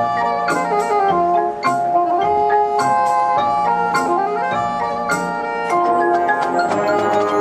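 Marching band music led by the front ensemble's mallet percussion: marimba and glockenspiel play a moving melody of quick struck notes over held chords.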